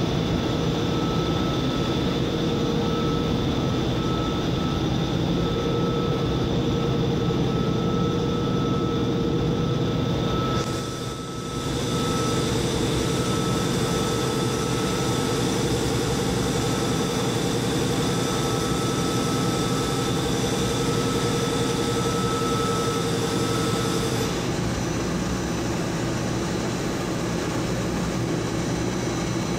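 Steady running noise of polypropylene staple fiber production-line machinery, a dense mechanical hum with a few steady whining tones over it. The sound dips briefly about eleven seconds in, and the whining tones drop out about twenty-four seconds in.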